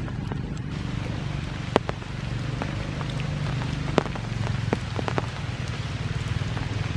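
Rain falling steadily, with scattered sharp ticks of drops, the loudest a little under two seconds in and again at about four seconds.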